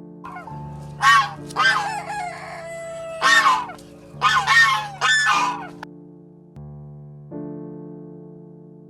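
Chickens calling: five short, harsh calls in quick succession during the first six seconds, over soft background music of sustained chords.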